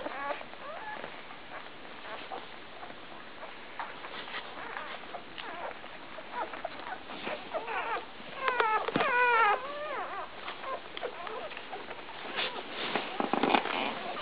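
Newborn Labrador retriever puppies squeaking and whimpering, short high calls that bend in pitch. A burst of several overlapping squeals comes a little past halfway, and scattered soft rustles and clicks run between the calls.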